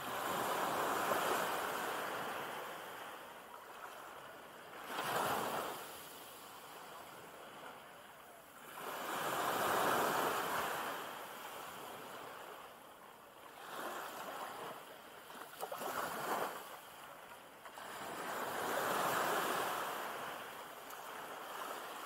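Small sea waves breaking gently at the shoreline and washing up over sand, coming in slow surges every few seconds. The biggest surges are at the start, about ten seconds in and near the end, with a short sharper one about five seconds in.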